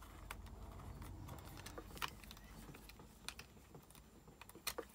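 Small screwdriver driving a screw into the plastic case of a Concept2 PM3 rowing-machine monitor: faint, scattered clicks and ticks, the sharpest about two seconds in.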